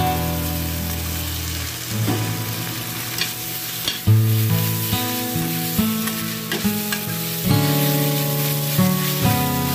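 Salted mustard greens and tofu sizzling in a stainless steel pan as a metal spatula stirs and scrapes them, with a few sharp knocks of the spatula on the pan about three to four seconds in. Background music plays underneath.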